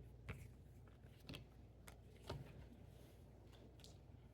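Near silence with three faint clicks about a second apart: trading cards being handled and set down.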